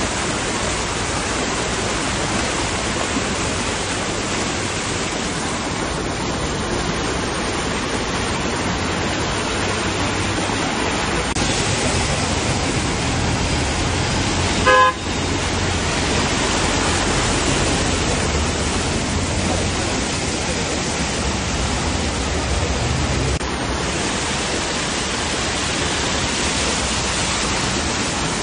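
Steady hiss of heavy rain and flood water on a street, with a low vehicle rumble under it. A short vehicle horn toot about halfway through is the loudest sound.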